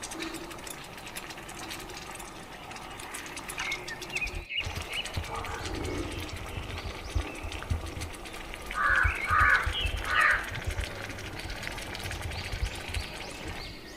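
An animal calling three times in quick succession over a steady outdoor background hum.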